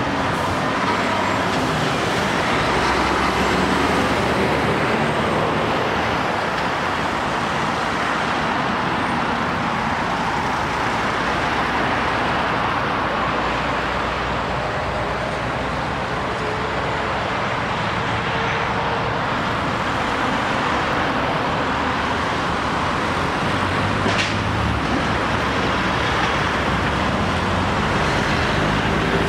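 Road traffic passing continuously at a steady level, made up of articulated lorries' diesel engines and cars' tyres, with one short click about 24 seconds in.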